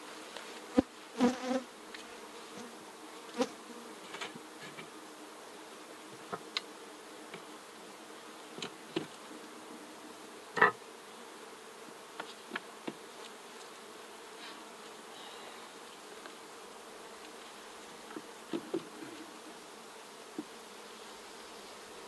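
Honeybees buzzing steadily in a low hum around an open horizontal Langstroth hive, with scattered short wooden knocks as frames are set into the hive body; the loudest knock comes about halfway through.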